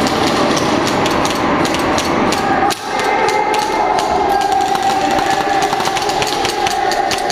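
Airsoft guns firing rapid shots, sharp cracks coming several a second in uneven strings, with a short lull a little under three seconds in.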